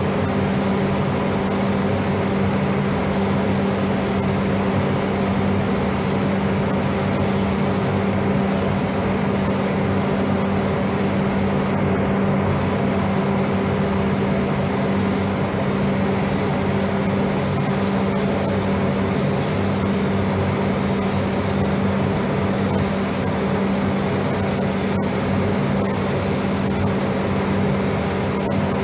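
Paint spray booth ventilation fans running, a loud steady hum with a strong low drone over a wide rush of moving air.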